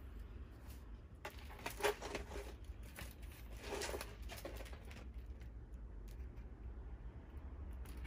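Brief rustling and handling noises as diamond painting kit parts and packaging are moved over a cloth, a few short rustles about a second in and again around four seconds, over a steady low hum.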